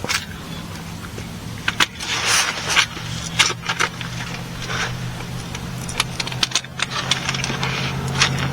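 Irregular metal clicks and clinks of hand tools and the oil drain plug being worked under the Jeep, with short scraping rustles, over a steady low hum.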